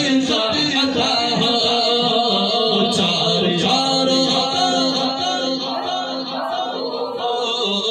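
A man singing a naat, an Urdu devotional poem in praise of the Prophet Muhammad, into a microphone, in long held and bending melodic lines.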